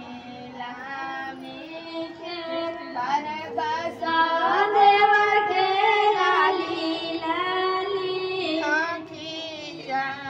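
High female voices singing a Chhath devotional folk song, with long held notes that bend up and down. The singing is loudest in the middle.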